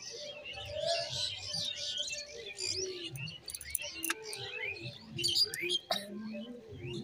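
Small birds chirping, many short high chirps overlapping throughout, with a sharp click about six seconds in.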